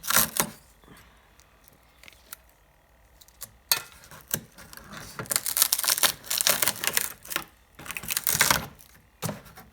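Handling noises of loose, cracked plastic bumper parts: irregular clicks, rattles and rustles, quiet for a few seconds and then in clattering bursts about five to seven seconds in and again near eight and a half seconds.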